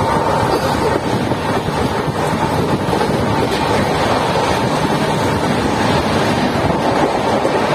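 Loud, steady rush of wind buffeting the microphone, mixed with wheel and rail rumble, at the open door of an LHB passenger coach running at speed.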